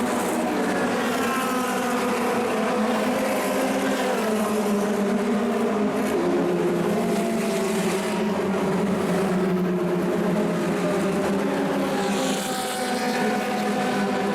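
Several 1960s cigar-shaped Formula 2 and Formula 3 race car engines running together, their pitches rising and falling as they rev.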